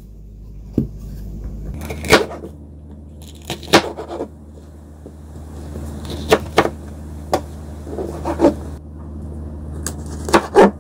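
Kitchen knife slicing a green bell pepper into strips on a cutting board: a series of sharp knocks as the blade hits the board, spaced irregularly, about ten in all.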